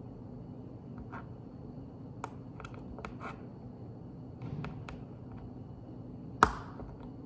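Small plastic Lego pieces being handled and pressed together: scattered light clicks and taps, with one much louder sharp click a little over six seconds in.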